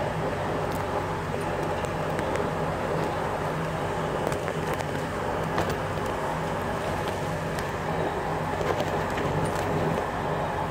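Steady repair-shop background noise: an even rumble with a low hum and a few faint clicks.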